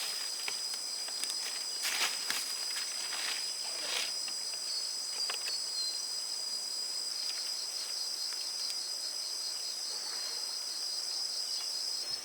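Insects calling in a steady, high-pitched unbroken drone, with a few faint rustles or knocks.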